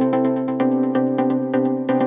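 Electronic background music with a steady fast beat and sustained synthesizer chords.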